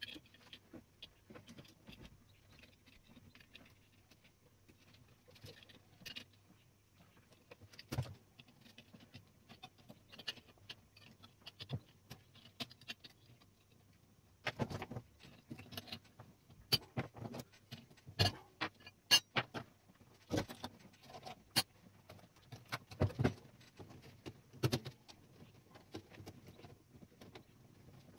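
Tools and small metal parts of a Klein Adler 2 typewriter clicking and knocking during a repair: light scattered clicks at first, then from about halfway a series of sharper, louder irregular knocks as a part is tapped and worked into place.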